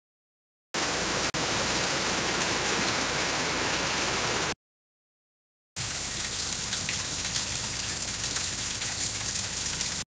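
AI-generated rain sound effect: two separate clips of steady, dense rain-like pattering, each about four seconds long, divided by a second of silence. The first clip is louder and has a brief dropout a little over a second in.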